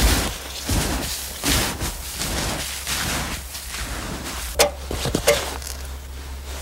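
Snowshoes crunching and packing down snow in steady stamping steps, about one every three-quarters of a second, followed by two sharp knocks a little over halfway through.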